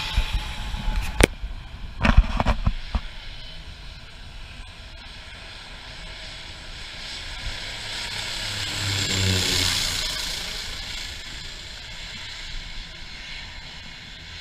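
Small propeller plane flying low overhead on its landing approach. Its engine drone swells to a peak about two-thirds of the way through, then fades. Near the start, a few sharp knocks sound as the drone of the previous twin-engine turboprop dies away.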